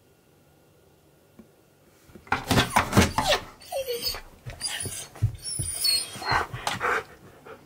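Husky-malamute mix making a run of loud, breathy huffs at a window, starting about two seconds in, with a short falling whine about four seconds in.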